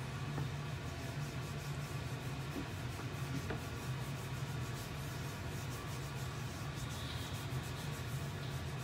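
Hands rubbing coarse salt into a slab of raw pork belly on a plate: a soft, continuous scratchy rubbing, over a steady low hum.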